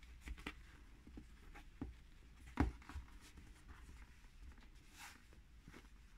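Faint handling of denim fabric by hand on a hard tabletop: soft rustling of the cloth with scattered light taps and clicks, the sharpest about two and a half seconds in.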